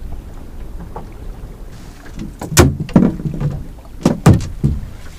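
A conger eel being landed into a small boat: several loud thumps and knocks against the hull and deck, in two bursts about two and a half and four seconds in. A steady low rumble of wind and water runs underneath.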